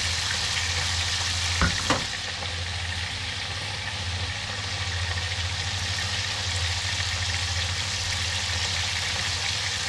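Small whole fish frying in hot oil in a pan, a steady sizzle, with two light knocks about two seconds in.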